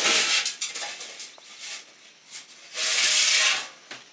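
Sheet metal scraping and rubbing as it is pulled out of a pile of scrap, with a few light knocks between. A second, longer scrape comes about three seconds in.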